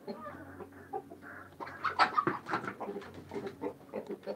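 Domestic hens clucking in a run of short, repeated calls, loudest about two seconds in.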